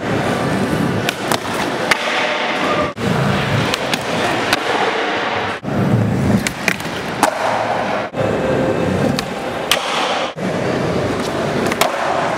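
Skateboard wheels rolling on smooth concrete, with several sharp clacks of the board popping and landing. The sound breaks off abruptly about four times as one clip cuts to the next.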